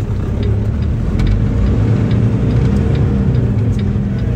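Semi truck's diesel engine pulling away to make a turn, heard from inside the cab, getting a little louder about half a second in and holding steady.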